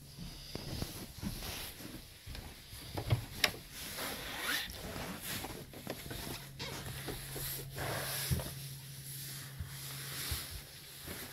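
Footsteps and clothing rustle of someone walking down a short stairway, with scattered light knocks. A low steady hum comes in after about three seconds and stops near the end.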